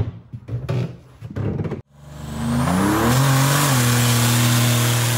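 A few short clicks and knocks. Then, about two seconds in, a Buick Grand National's turbocharged V6 revs up and holds steady at high revs in a burnout, over the hiss of the spinning rear tyre.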